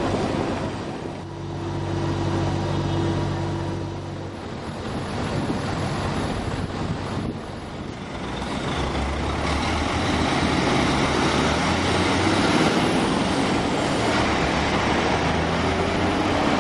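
Heavy vehicle engines in street traffic: a double-decker bus's engine running, then a heavy dump truck's diesel engine going by, louder from about ten seconds in.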